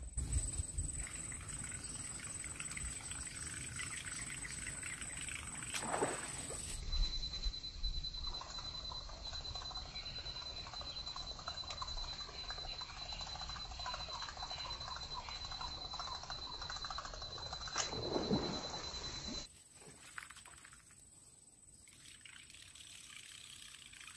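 Topwater lure being retrieved across the water, sputtering and splashing at the surface, with the reel ticking faintly and two louder moments about six and eighteen seconds in.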